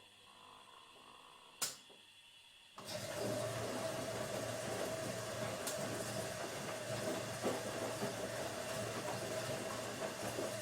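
Automatic washing machine: a single sharp click, then a little under three seconds in a steady rushing hiss starts, with a low hum and a steady mid-pitched whine, and runs on evenly.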